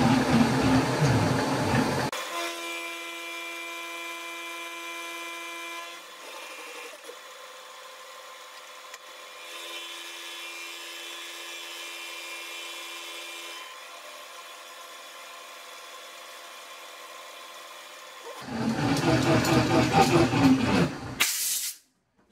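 Milling machine with an indexable-insert face mill taking a light 0.4 mm skim cut across a metal block: a steady whine made of several even tones, swelling twice during the pass. Background music plays over the first two seconds and again near the end.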